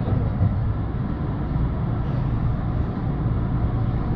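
Kintetsu electric express train running along an underground station platform, heard from just behind the driver's cab: a steady low rumble of wheels and running gear as it pulls into the terminus.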